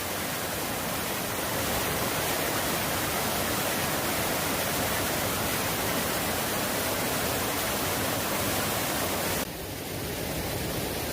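River water rushing: a steady wash of noise that drops suddenly, a little quieter and duller, about nine and a half seconds in.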